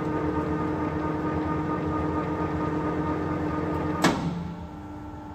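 Nuttall Generation 350 centre lathe running with a steady whine. About four seconds in, a click comes as the control lever is thrown, and the running sound dies away.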